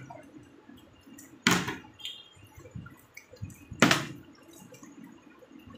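Plastic water bottle with some water in it, flipped and hitting a tiled floor in a bottle-flip game: two sharp thuds, about a second and a half in and again near four seconds in, the second the louder, each with a short tail.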